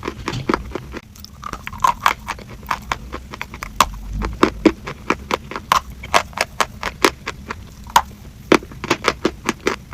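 Close-miked eating-ASMR sounds: a fast, irregular run of crunchy, sticky clicks and crackles, several a second.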